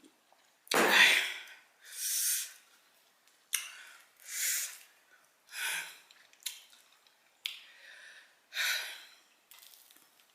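A woman breathing hard and hissing through her mouth, about six sharp breaths roughly a second and a half apart, the first one about a second in the loudest. Her mouth is burning from scorpion-pepper hot sauce.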